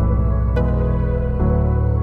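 Slow new-age background music of held chords over a low bass note. The chord changes about half a second in and again near a second and a half, with a soft struck note at the first change.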